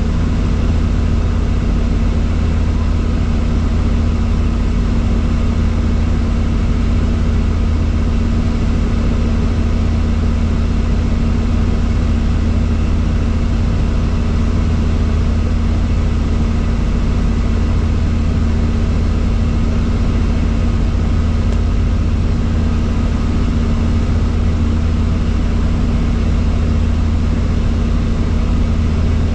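Helicopter in flight, its rotor and engine making a steady, loud low drone that holds unchanged throughout.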